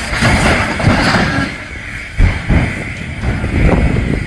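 Derailed freight train wagons, overturned on their sides, dragging and scraping along the ground: a loud grinding rumble broken by heavy irregular thuds, the biggest about two seconds in.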